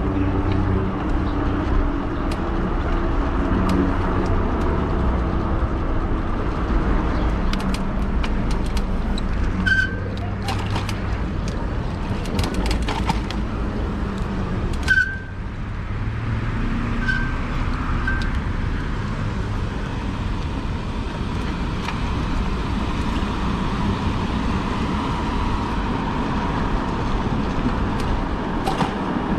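Street traffic and road noise heard while riding a fat-tyre electric bike: a steady low rumble of passing cars, with a few clicks and several short, high chirps.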